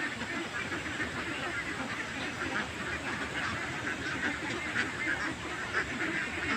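A flock of birds calling, many short calls overlapping in a dense, irregular chatter.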